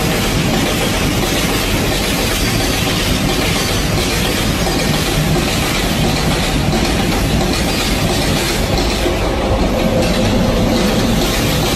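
Loaded open coal wagons of a long freight train rolling past on the rails: a steady, loud noise of wheels and wagons running without a break.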